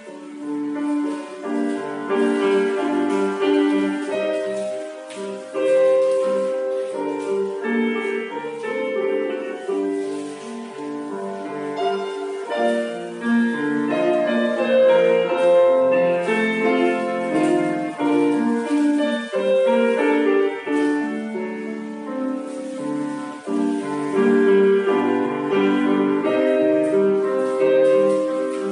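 Solo piano playing classical-style ballet class accompaniment for a pliés and temps liés combination, with a steady succession of notes and chords.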